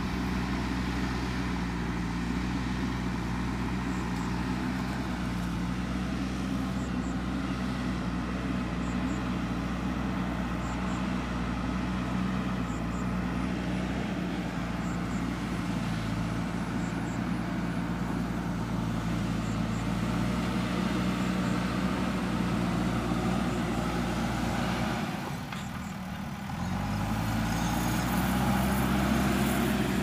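Diesel engine of a JCB 3DX backhoe loader running steadily under load as it pushes soil with its front bucket. Near the end the engine note dips briefly, then comes back rising.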